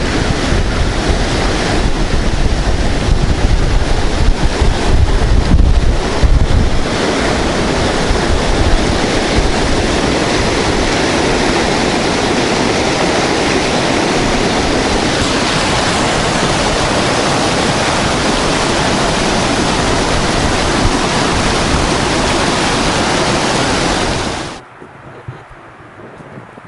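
Rushing water of the river Inzer, a loud, steady rush, with wind buffeting the microphone for the first several seconds; the sound cuts off abruptly near the end.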